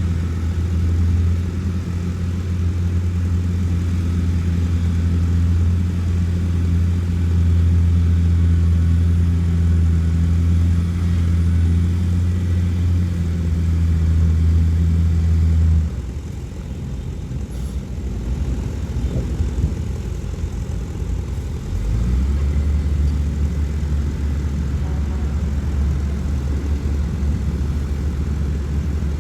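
Heavy diesel engine of earthmoving machinery running with a steady, deep drone. About 16 seconds in the drone drops away to a quieter, rougher engine sound, and a little after 22 seconds a steady drone comes back at a lower pitch.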